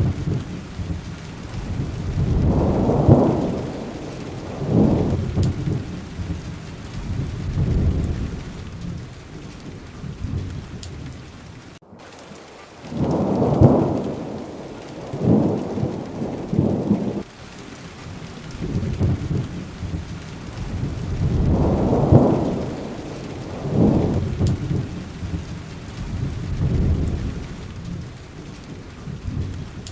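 Steady rain with thunder rolling again and again: low rumbles swell and fade every two or three seconds over the hiss of the rain, with a brief cut in the sound about twelve seconds in.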